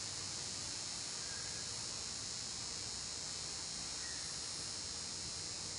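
A steady, high-pitched drone that holds unchanged, with no other sound standing out.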